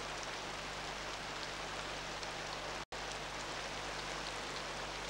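Steady rain falling on rainforest foliage and puddled ground, with scattered separate drops ticking through the hiss. The sound cuts out for an instant about three seconds in.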